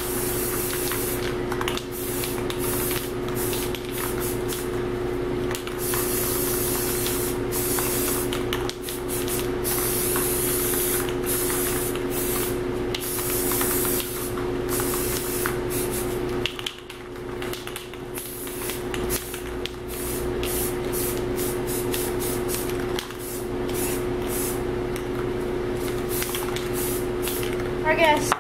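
Aerosol can of Rust-Oleum Camouflage 2x spray paint hissing in repeated bursts of varying length as tan coats go onto a rifle, with short pauses between passes. A steady low hum runs underneath.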